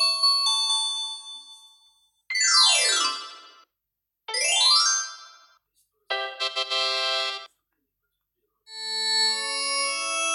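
Brid A130 phone ringtones played one after another, each short and cut off by silence: a chime fading out, a quick falling electronic sweep, a quick rising sweep, a buzzy held chord about a second and a half long, then a run of synthesized notes stepping upward.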